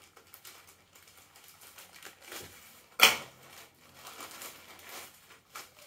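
Plastic courier mailer bag rustling and crinkling as it is handled and pulled open. One sharp, loud snap comes about three seconds in.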